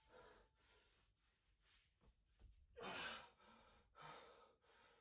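Near silence with faint breathing, one breath a little louder about three seconds in.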